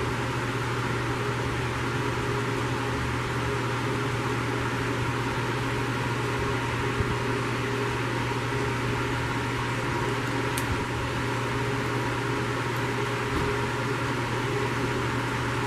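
Hot air rework station blowing: a steady fan hiss with a constant low hum underneath.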